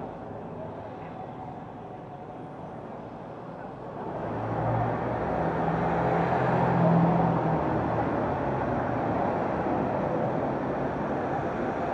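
Street traffic: a car drives past close by, its engine and tyres loudest a few seconds in, over steady traffic noise.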